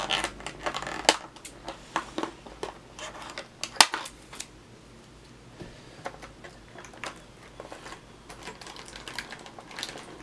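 Unpacking a boxed diecast model: metal twist ties and clear plastic packaging being handled, giving irregular small clicks and ticks, with one sharper click about four seconds in.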